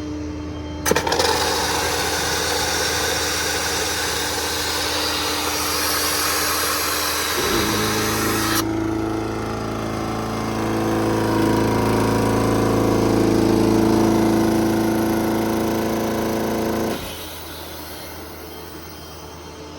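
Compressed air hissing hard out of a service truck's air tank drain, blowing out moisture from the tank. It starts suddenly about a second in and cuts off sharply after about eight seconds. Overlapping its end, a steady machine hum starts and runs for about nine seconds before stopping abruptly.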